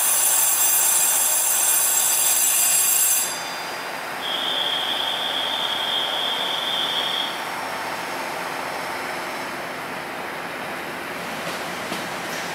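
Train running on rails with a high-pitched wheel squeal for about the first three seconds, then a single high steady tone lasting about three seconds, over a steady rushing rail noise.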